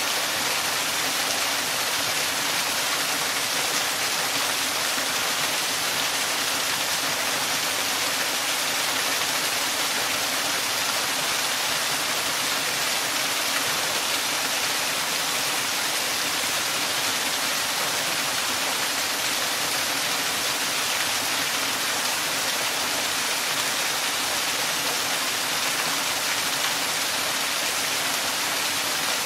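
Small waterfall: water falling and splashing in a steady, even rush, with most of its sound in the upper range and little low rumble.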